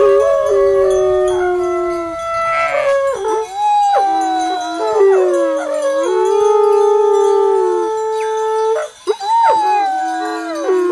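Trâmbiță, a long Romanian herder's horn, played solo: a slow melody of long held notes that slide and bend from one pitch to the next, with a short break near the end.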